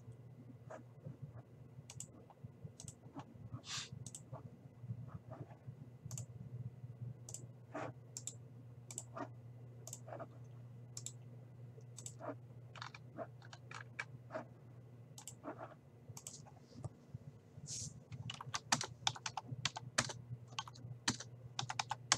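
Computer keyboard typing: scattered, irregular keystrokes that bunch into a quicker run in the last few seconds, over a faint steady low hum.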